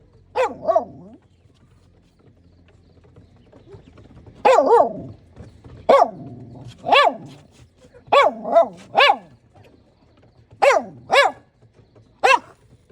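A dog barking, about a dozen short barks with pauses between, coming singly, in pairs and in a run of three.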